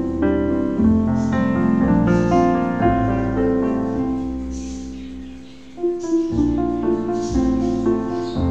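Background piano music playing gentle sustained chords. The notes die away about five seconds in, and a new phrase starts about a second later.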